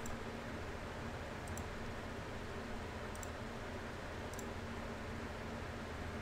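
A computer mouse clicking four times, each click a quick double tick of press and release, faint over a steady background hum and hiss.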